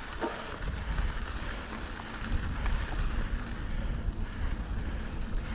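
Wind noise on the microphone over the steady rolling rumble of a Santa Cruz Bronson mountain bike's tyres on a dirt trail, with a few light clicks.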